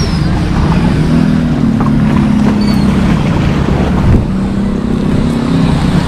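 A boat engine running steadily, with a couple of short seagull cries over it.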